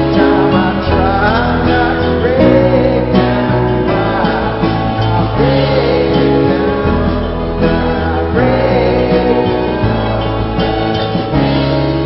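A song with a singer over a steady instrumental backing of chords and bass.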